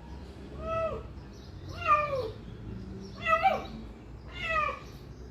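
Domestic cat meowing four times, about one meow a second, each call dropping in pitch at the end.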